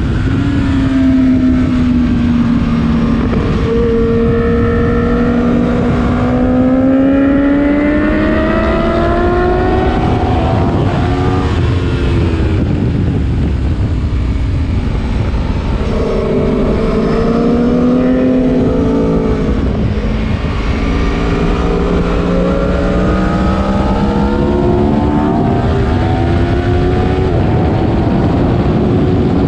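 Aprilia Tuono V4 Factory's 1077 cc V4 engine at full track pace, heard onboard. Its pitch climbs hard under acceleration and drops away on the brakes several times.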